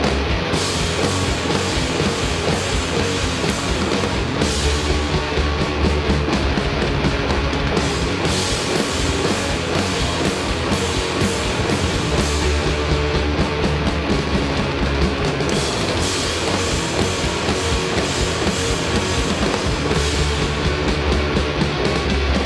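Rock band playing live: distorted electric guitars, electric bass and drum kit together. The arrangement shifts every few seconds between stretches heavy in low bass and stretches bright with crashing cymbals.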